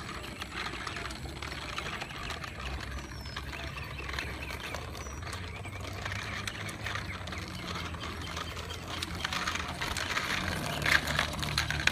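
Child's bicycle with training wheels rolling over a chip-seal road: a steady crackle of many small clicks as the tyres and hard plastic training wheels run over the loose grit, with a low steady hum underneath and a few louder clicks near the end.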